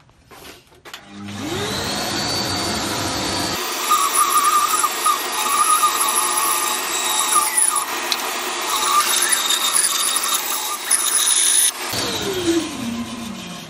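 Woodworking bandsaw starting up with a rising whine about a second in, then its blade cutting through a thick block of beech, which makes it louder and rougher for several seconds. It is switched off near the end and winds down with a falling pitch.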